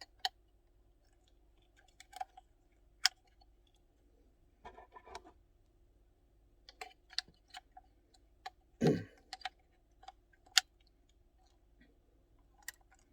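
Scattered sharp clicks and small knocks from handling an old Super 8 film camera: its battery compartment and controls being worked. There is a louder, duller knock about nine seconds in. No motor is heard running.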